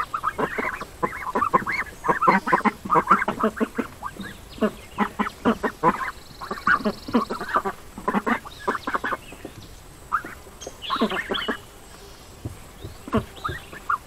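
A flock of white domestic ducks quacking, many short calls in quick runs that thin out to a few scattered quacks after about nine seconds.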